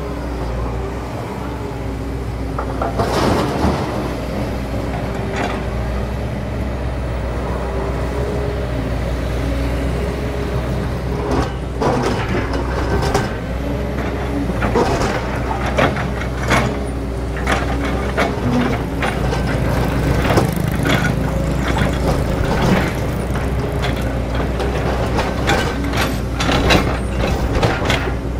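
Kobelco SK200 hydraulic excavator working: its diesel engine runs steadily under load while the bucket digs and scrapes through soil. Short knocks and clanks from the bucket and arm come now and then early on and frequently in the second half.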